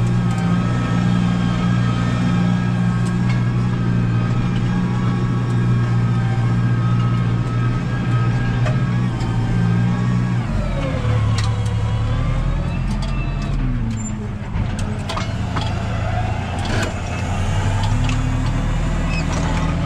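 Tractor diesel engine running steadily under load while pulling a tillage implement through the soil, burning about 2.5 to 3 litres of fuel. The engine note changes about halfway through, with some scattered clicks and rattles.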